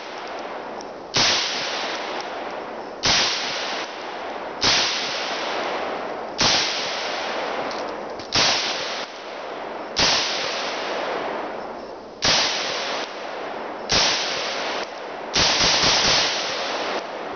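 M-14 rifle firing 7.62×51mm rounds in slow, steady shots, about nine of them spaced roughly every one and a half to two seconds. Each crack is followed by a long echo that fades away before the next shot.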